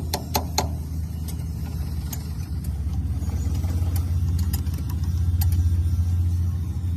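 An engine running steadily, its low hum swelling a little past the middle, with a few sharp clicks near the start.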